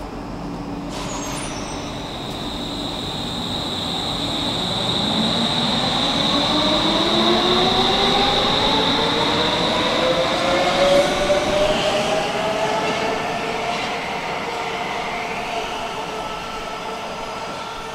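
Stockholm metro train pulling out of the station. A click comes about a second in, followed by a steady high whine and a whine that rises steadily in pitch as the train gathers speed, then fades as it leaves.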